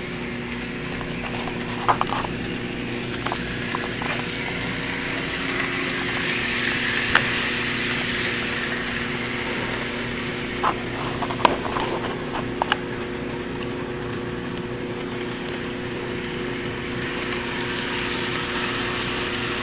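Electric model train running slowly around the track: a steady motor hum under a rattle of wheels on the rails that swells and fades as the train passes, with a few sharp clicks. It is running slower than usual, which the owner puts down to the engine still being cold.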